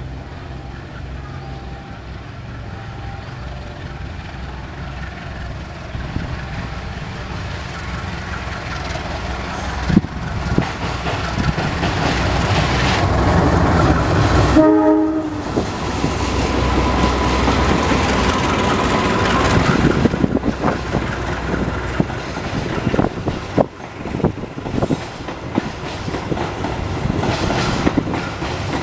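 CC201 diesel-electric locomotive hauling a passenger train approaches and passes, its diesel engine rumble building steadily. A short horn blast sounds about halfway through. The coaches then roll by, with wheels clicking over the rail joints.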